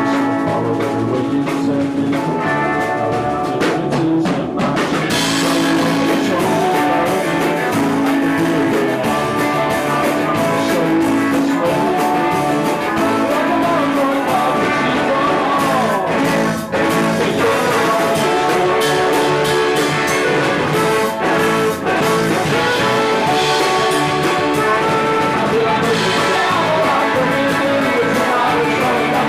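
Live rock band playing a song, with guitar and drums, the full kit with cymbals building up about five seconds in.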